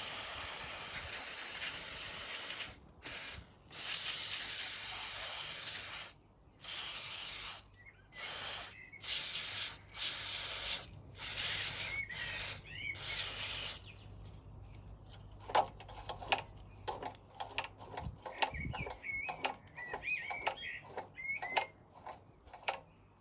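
Aerosol lubricant spray hissing in about ten bursts of varying length, from under a second to nearly three seconds, sprayed onto the seized-up parts of a Mountfield Empress 16 mower engine. After about fourteen seconds the spraying stops, and the parts are heard clicking and squeaking as they are worked.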